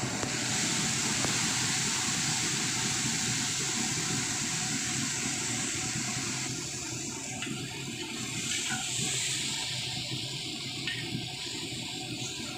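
Sardines in tomato sauce hitting a hot wok of sautéed onions and chillies, sizzling hard about half a second in. From about six seconds in it eases to a softer sizzle and bubble with a few small pops and ticks, over a steady low rumble.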